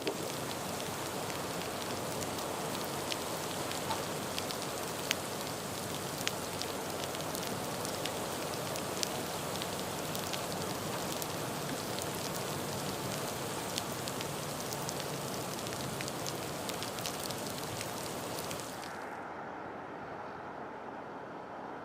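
Heavy rain falling hard, a dense hiss with many sharp individual drop impacts. About nineteen seconds in the hiss of the rain drops away, leaving a quieter, lower steady noise.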